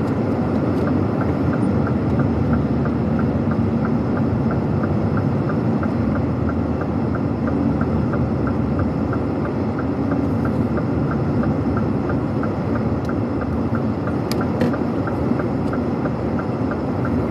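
Steady engine and road drone inside a loaded semi-truck's cab on the move, with the turn-signal indicator ticking evenly, about two to three clicks a second.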